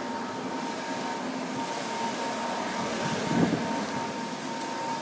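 Handling and rubbing noise from a handheld phone being carried while walking, over steady indoor hum with a faint steady whine. There is a brief bump about three and a half seconds in.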